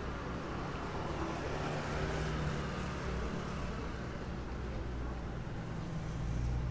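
City street traffic: the steady low hum of motor vehicle engines, with tyre and engine noise swelling as a vehicle passes about two seconds in.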